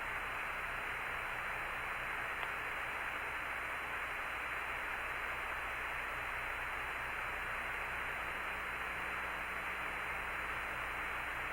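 Steady radio hiss on the Apollo air-to-ground voice link, with a low hum underneath.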